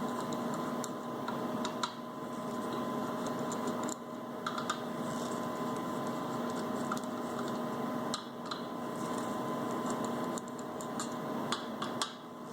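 Scattered small metallic clicks and taps as a nut driver works the faceplate bolts of a rotary vane air compressor loose, over a steady background hum.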